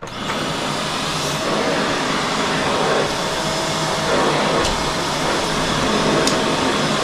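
Eureka Whirlwind NEN110A bagless dual-cyclone canister vacuum starting up and running steadily as it is pushed over carpet.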